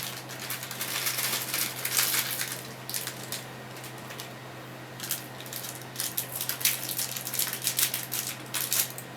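Rustling of a small plastic hardware bag and the rattle and clicks of tiny metal screws inside it as it is handled and opened, with a pause in the middle. A steady low hum runs underneath.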